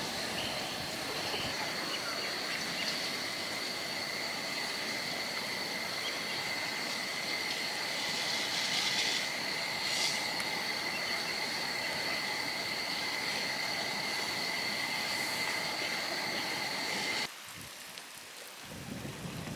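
Steady insect chorus: a continuous high trill over a low hiss, which cuts off abruptly a couple of seconds before the end.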